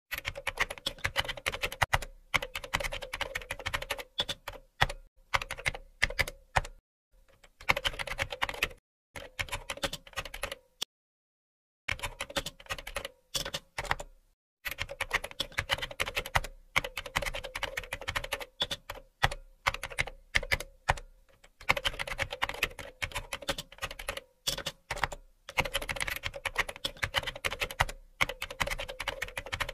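Computer keyboard typing sound effect: runs of rapid keystrokes lasting a second or two, broken by short pauses, with a full second of silence about eleven seconds in.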